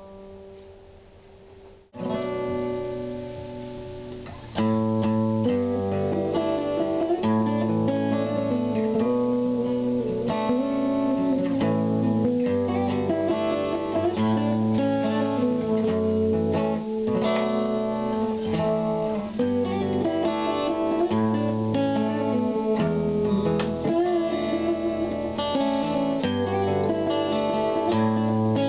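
Two guitars, at least one a steel-string acoustic, played together in a picked melodic passage. It comes in about two seconds in and grows louder a couple of seconds later.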